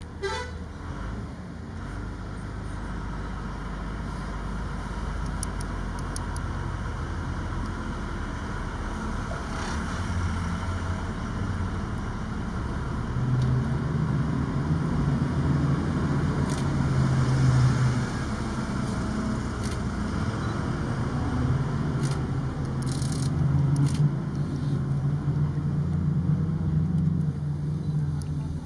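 A motor vehicle's engine running with a steady low rumble, which grows louder about halfway through.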